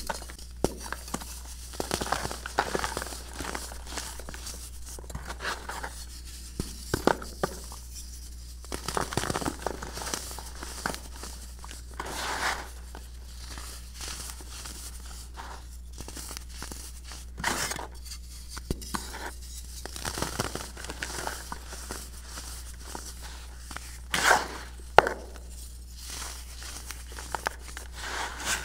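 Hands snapping and crumbling slabs of hardened baking soda in a plastic bowl: irregular dry crunching and crackling with soft powdery crumbling in between, and a few sharper cracks, the loudest near the end.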